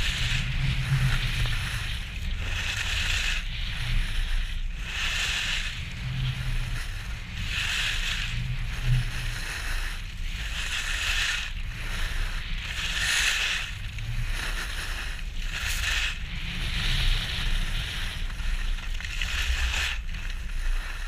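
Skis carving turns on hard-packed snow, a hiss that swells with each turn every second and a half to two seconds, over steady wind rumble on the helmet camera's microphone.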